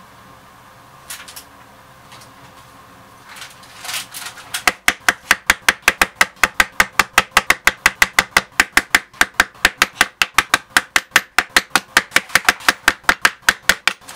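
A mallet striking a multi-prong leather stitching chisel, punching a row of stitching holes through leather onto a cutting board. After a few light knocks as the chisel is set, a steady run of sharp strikes begins about a third of the way in, about five a second.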